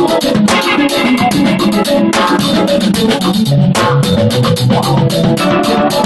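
Live jazz-fusion band playing loud and busy: a drum kit and percussion hit densely with constant cymbal wash, over electric bass and guitar.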